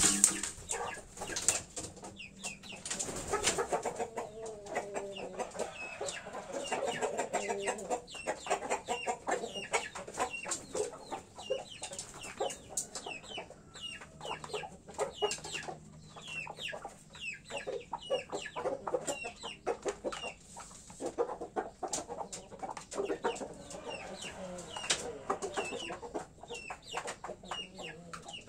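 Domestic roosters clucking and chirping in short repeated calls, with many small clicks and taps among them.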